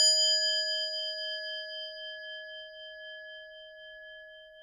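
A single struck metal bell tone, struck just before and ringing out with several clear overtones. It fades slowly and wavers a little as it dies away.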